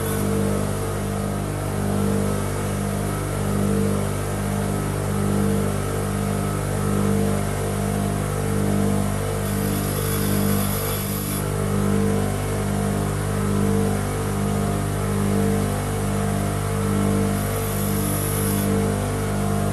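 Bench grinder running with a steady hum that pulses about once a second, while the tip of a small steel insert-screw wrench is ground against the wheel, throwing sparks. The grinding takes the over-tapered tip back so the wrench fits its screw.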